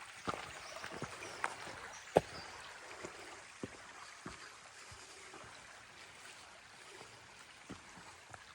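A stream running steadily and faintly, with a few irregular sharp clicks and knocks over it, the loudest about two seconds in.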